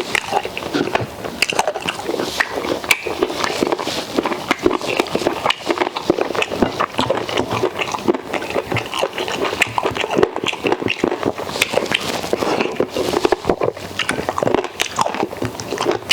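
A person chewing and smacking food loudly, with a constant run of wet mouth clicks and lip smacks: mukbang eating sounds.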